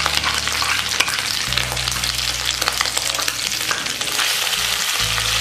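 Boiled, mashed potatoes frying in hot oil with cumin seeds in a kadhai, a steady sizzle full of small crackles as they are stirred and turned with a wooden spatula.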